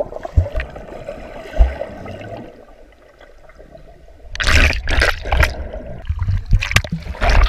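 Water heard through a submerged camera: muffled bubbling and gurgling, then about four seconds in the camera breaks the surface into loud splashing from a swimmer paddling, with more splashes near the end.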